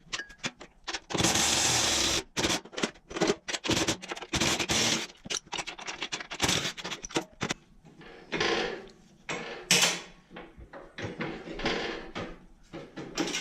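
Hand work on the garden tractor's bolts: irregular clicks and clanks of metal tools and parts, with a rasping burst of about a second shortly after the start and a few shorter ones later.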